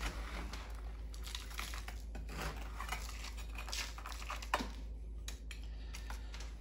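Large kitchen knife cutting and scraping through a hard baked crust of coarse kosher salt and egg white, a run of gritty crunching scrapes with a sharper click about four and a half seconds in.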